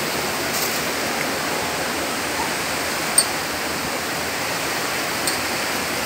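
Steady rush of water from a rocky mountain stream and waterfall, an even hiss with no pauses. A single sharp click stands out about three seconds in.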